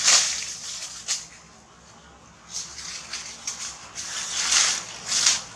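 Leaves and branches rustling and swishing as macaques climb through a tree: a string of short bursts, the loudest right at the start and about four and a half and five seconds in.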